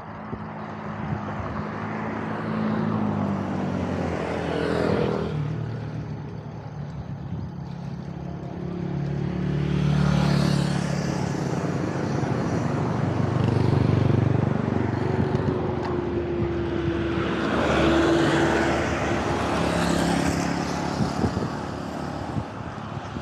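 Road traffic going by: cars and motorbikes passing close one after another, their engine hum swelling and fading three times.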